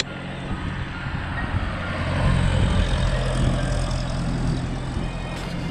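Road traffic driving past at close range, a light truck among it, over a steady low engine hum; the passing noise is loudest about two to three and a half seconds in.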